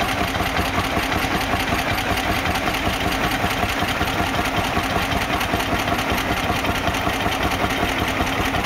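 Lanz Bulldog tractor's single-cylinder two-stroke hot-bulb engine running with a steady, rapid beat while the tractor pulls a sledge.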